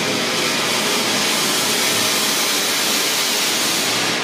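Ground fountain firework (anar) spraying a column of sparks with a loud, steady hiss.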